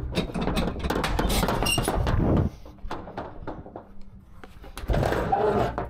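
Knocks, clicks and rubbing handling noise from a truck driver working at the rear of a Schwarzmüller semi-trailer. It is busiest in the first two and a half seconds. About five seconds in comes a short squeaking metallic clatter from the rear doors' gear.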